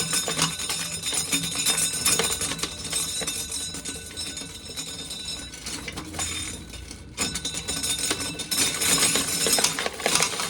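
Hand-cranked corn sheller stripping an ear of corn: a dense, continuous clatter of kernels and metal parts rattling, with a short break about seven seconds in.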